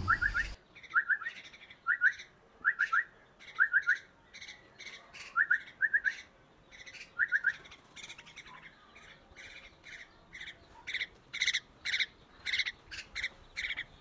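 Young common mynahs calling: short rising chirps in twos and threes about once a second, then from about eight seconds in, louder, harsher squawks several a second.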